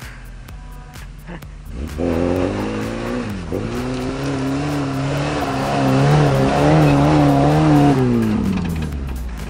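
Off-road vehicle engine revving hard under load, starting about two seconds in. Its pitch dips sharply once, then climbs and wavers up and down before falling away near the end.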